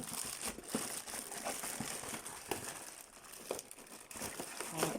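A tightly fitted product box and its packaging being handled and worked apart by hand to get the hair crimper out: crinkling and scraping with scattered small clicks and taps.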